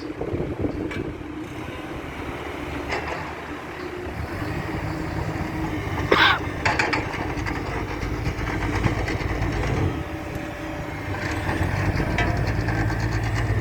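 Road roller's diesel engine running steadily, growing louder near the end, with a short higher-pitched sound about six seconds in.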